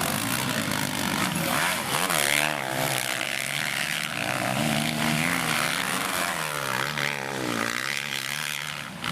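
Several motocross bikes racing, their engines revving up and falling back again and again as they work through the track, the notes of more than one bike overlapping.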